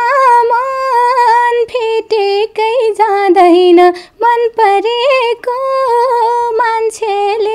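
A woman singing a Nepali song unaccompanied. She holds long notes with quick ornamented turns, broken by short pauses for breath.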